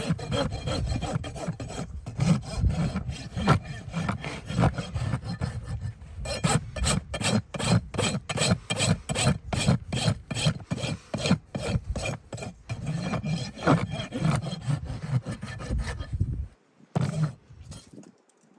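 Farrier's rasp filing a horse's hind hoof in quick repeated rough strokes, stopping a couple of seconds before the end.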